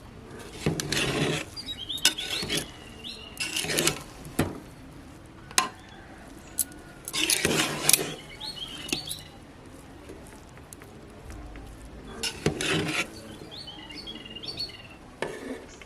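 A metal spoon scraping and clinking against a metal pressure cooker pot in about five short bouts, with a few sharp clicks, as cooked rice is stirred. Birds chirp faintly between the bouts.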